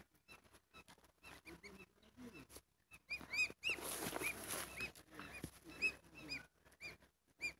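Goslings peeping: many short, high, repeated chirps, with a burst of rustling about halfway through.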